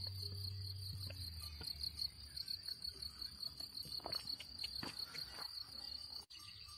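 Crickets chirping in a fast, steady, pulsing high trill. A low hum fades out in the first couple of seconds, a few soft knocks come about four to five seconds in, and the sound cuts out for an instant near the end.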